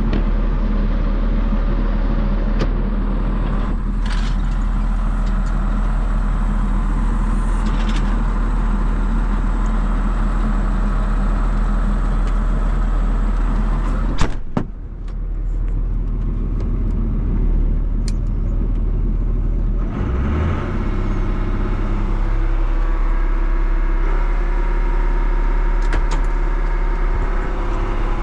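John Deere 7200 tractor's diesel engine running steadily under way. A sharp click comes about fourteen seconds in, followed by a brief dip in level, and the engine note steps up in pitch about twenty seconds in.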